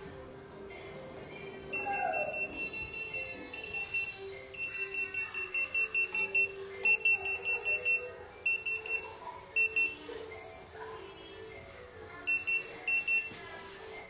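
Handheld hidden-camera detector beeping: runs of fast, high-pitched beeps, several a second, that start and stop again and again. The beeping is the detector's alert that it is picking up a signal.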